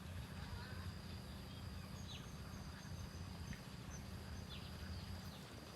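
Faint outdoor ambience: a low steady hum under a thin, steady high tone, with a few brief, faint chirps about two seconds in and again near four and a half seconds.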